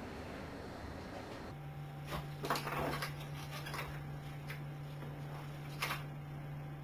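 A steady low hum that starts about a second and a half in, with a few scattered light clicks and knocks over it, a small cluster of them loudest about two and a half seconds in.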